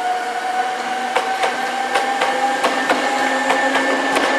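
Hankyu 3300-series electric train pulling out past the platform, its motors whining in a tone that rises slowly as it gathers speed. Its wheels clack over the rail joints in pairs, the pairs coming closer together.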